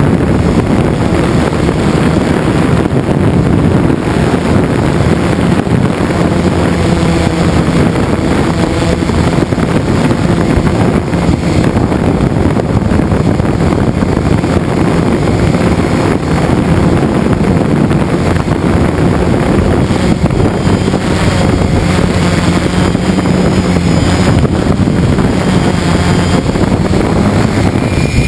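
Homemade quadcopter's electric motors and propellers running steadily in flight, close to an onboard GoPro, with wind noise on the microphone. The craft is running on a nearly exhausted LiPo battery.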